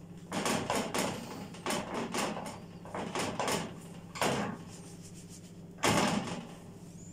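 Short scrapes and knocks from a silicone spatula spreading batter in a nonstick crepe pan and from the pan being handled on the gas stove's grate, in clusters through the first four seconds, with the loudest knock about six seconds in.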